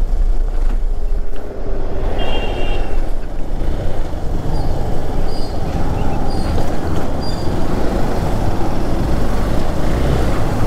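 Riding a Hero XPulse 200 4V motorcycle: steady wind rush and road noise on the rider's microphone, over the bike's single-cylinder engine running. A few short, faint high tones sound in the first part.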